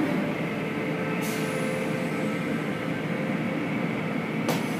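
Tunnel car wash machinery running, heard from inside the car: a steady mechanical rumble with faint steady tones and a couple of brief clicks.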